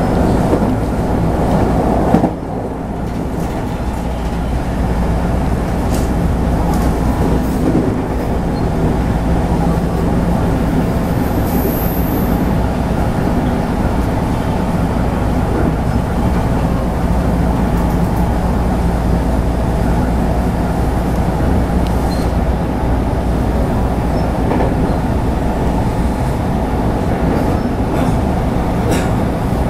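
Running sound of a JR West 221 series electric train at speed: a steady rumble of wheels on rail under a low hum from its drive, with a few clicks over rail joints. About two seconds in there is a short knock, after which the noise dips and builds back up over a few seconds.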